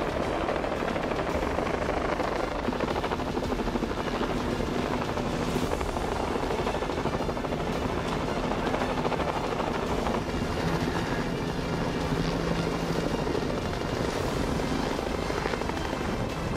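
Helicopter flying overhead, its rotor and engine sounding steadily, with a faint low hum.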